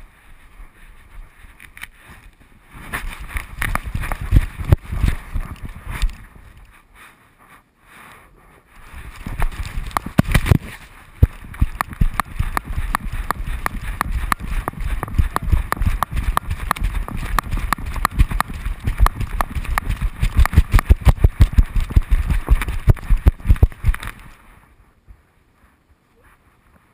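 Fast run of knocks and rubbing from a GoPro strapped to a running dog, each stride jolting the camera housing against her body and fur. It pauses briefly about seven seconds in, then goes on until it stops near the end.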